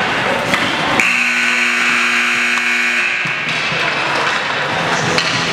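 A steady pitched signal tone at an ice hockey rink, held for about two seconds and starting abruptly about a second in, over the rink's constant background noise.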